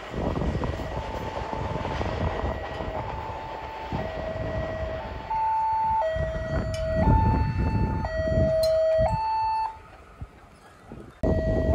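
Railway level crossing warning alarm sounding in two alternating tones, switching about once a second, over the low rumble of an approaching train. The alarm gets louder and clearer about five seconds in.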